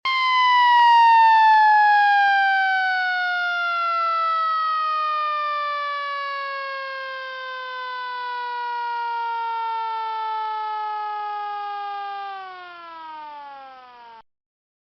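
Siren winding down: one tone that falls slowly and steadily in pitch, then drops faster near the end before cutting off.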